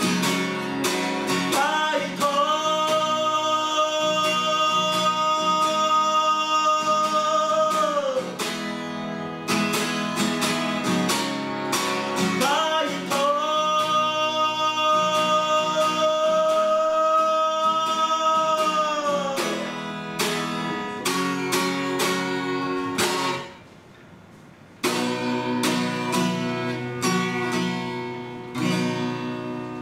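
Acoustic guitar strummed, with a man's voice singing two long held notes of about six seconds each. The playing drops off briefly about three-quarters of the way through, then the strumming starts again.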